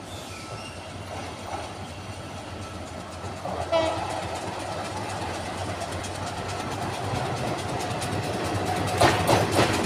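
A diesel locomotive running without carriages approaches, its engine rumble growing louder, with a short horn blast about four seconds in. Near the end its wheels clack sharply over rail joints as it draws close.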